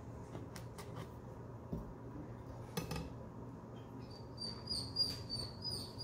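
Light knocks and clatter as a halved watermelon and a kitchen knife are handled on a countertop; the sharpest knock comes a little under three seconds in. From about four seconds in there is a run of short, high-pitched whines.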